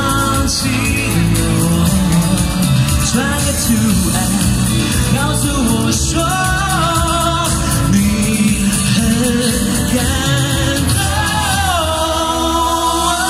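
A man singing a Mandarin pop song live into a handheld microphone over a backing track, with long held notes that slide in pitch.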